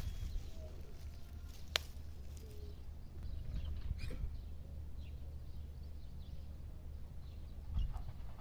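Outdoor ambience: faint short bird chirps over a low steady rumble, with one sharp click about two seconds in.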